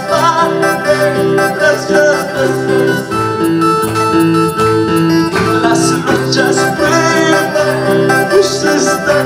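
Live worship music played on an electronic keyboard, a steady beat with guitar-like accompaniment, with a man singing into a microphone.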